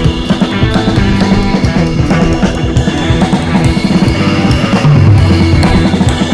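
Rock music with drums and electric guitar playing at a steady beat.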